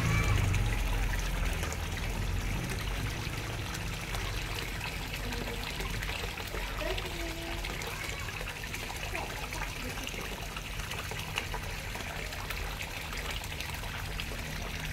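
Water trickling steadily from a small fish-pond spillway into the pond.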